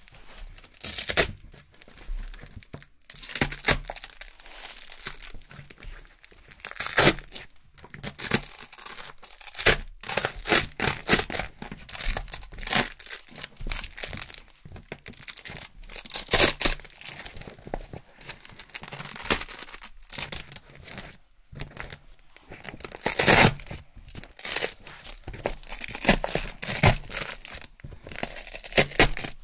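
Sheets of Velcro (hook-and-loop fabric) being peeled off a fabric-covered board, giving repeated crunchy ripping tears of uneven length. Quieter rustling and pressing come between the rips.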